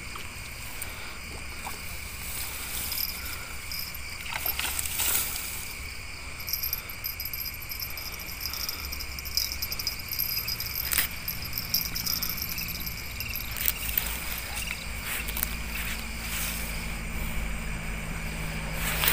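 Crickets and other night insects chirring steadily in several high pitches over a low, steady rumble, with a few brief clicks and rustles of handling.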